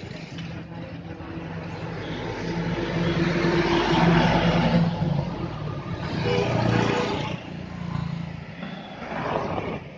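Road traffic passing close by. A dump truck's engine and tyres swell to the loudest point about four seconds in, and other vehicles go by in smaller swells later on.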